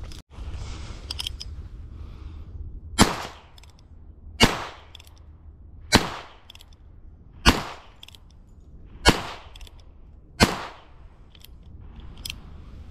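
Six shots from a Heritage Rough Rider .22 single-action revolver, evenly spaced about a second and a half apart, with faint clicks between some of them.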